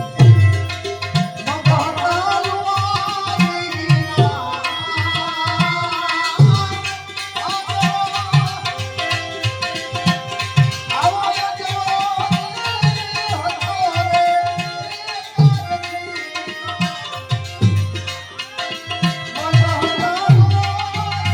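Instrumental passage of a Gujarati devotional bhajan: tabla playing a steady beat under a melodic instrument that plays recurring phrases.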